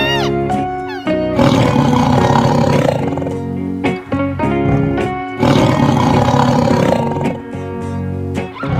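Two long, harsh animal calls, the first starting about a second in and the second about halfway through, over background music.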